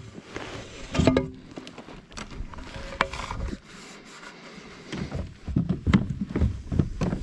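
Handling noise in a plastic fishing kayak: knocks, scrapes and rattles as a freshly landed bass and the landing net are handled. The knocks come thicker and louder from about halfway through.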